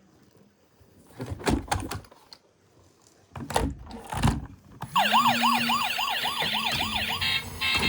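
Plastic clicks and knocks from a toy being handled, then about five seconds in a toy vehicle's electronic siren switches on: a fast, loud yelp about four times a second. Near the end it changes to a different electronic tone pattern.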